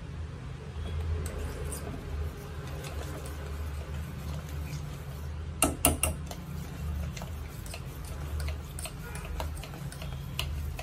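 Wire whisk beating thin maida batter in a stainless steel bowl: the wires tick and tap against the steel, with a cluster of sharper clicks about six seconds in and more toward the end. A steady low hum runs underneath.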